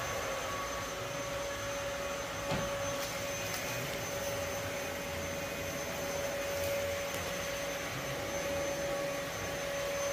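A steady machine whir with a constant humming tone, and a single faint click about two and a half seconds in.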